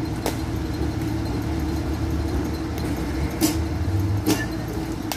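A baseball bat hitting pitched balls: three short, sharp cracks, one just after the start and two close together past the middle, over a steady low hum.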